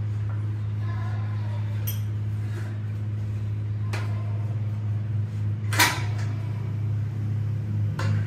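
Steady low hum under a few sharp metallic clicks and one louder clank about six seconds in, as the engine block is turned over on a steel engine stand and a ratchet is handled.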